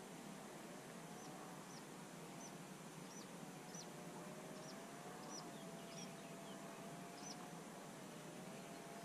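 A small bird calling over and over, short high chirps each dropping in pitch, coming roughly every half second to a second, with a faint wavering hum beneath.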